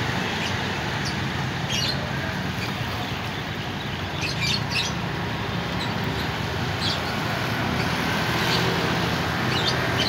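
Large diesel coach on a Hino RM280 chassis running slowly past on a wet road, a steady low engine rumble with tyre hiss, its telolet horn not sounded. Birds chirp briefly several times over it.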